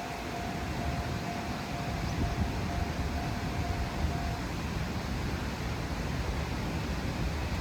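Railway level-crossing warning bell ringing in quick repeated strokes, then stopping about four seconds in, over a steady low rumble.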